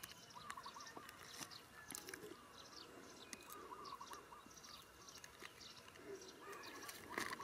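Faint bird calls in short, wavering repeated phrases every second or two, over light scattered clicks and rustles, with a sharper cluster of clicks near the end.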